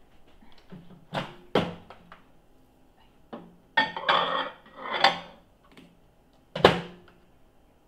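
Microwave oven door clicking open, then a ceramic plate clinking and scraping as it is slid onto the turntable, and the door shut with a sharp clack near the end.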